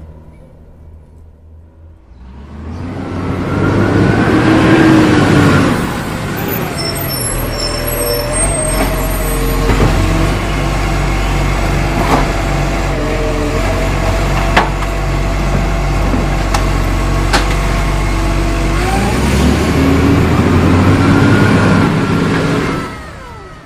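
Truck engine running: it revs up about two seconds in, runs steadily with a few shifts in pitch, revs up again near the end and cuts off just before the end.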